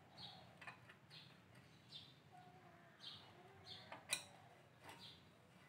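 Near silence, with a few faint metallic clicks from a bicycle headset's nut and cups being handled, the sharpest about four seconds in. Faint bird chirps repeat in the background.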